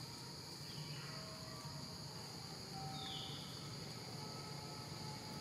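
Steady high-pitched insect chorus in forest, with a few faint short whistle-like calls now and then.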